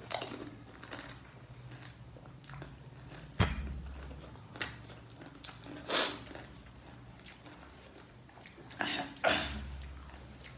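Eating sounds close to the microphone: several separate bites and mouth noises, with a sharp knock about three and a half seconds in and two louder bites close together near the end.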